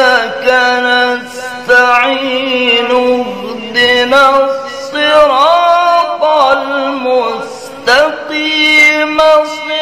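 A man reciting the Quran in the melodic chanted style of a qari, drawing long held phrases with wavering ornaments and brief breaths between them, as breath-control practice for a long breath.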